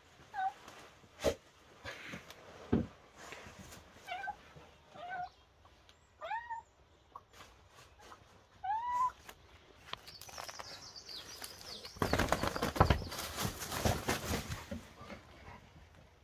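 A kitten-like cat meows about five times, short calls that rise then fall in pitch. A couple of sharp knocks come early, and later there are a few seconds of loud rustling through broad leaves.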